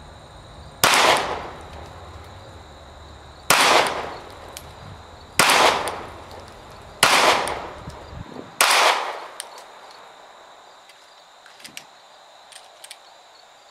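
Five single shots from a Glock 43X 9mm subcompact pistol, slow aimed fire, spaced one and a half to nearly three seconds apart, each with a sharp crack and a short echo. The last one is about two thirds of the way through, and it empties the five-round magazine. A few faint small clicks follow, with crickets chirping steadily in the background.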